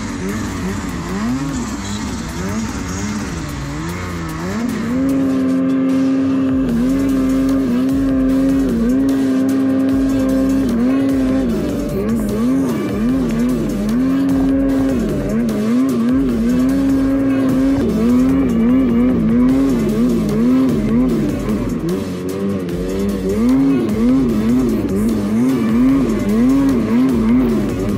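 Mountain snowmobile's two-stroke engine under throttle in deep powder. It gets louder about five seconds in, is held at high revs for a few seconds at a time, and otherwise rises and falls quickly as the throttle is worked.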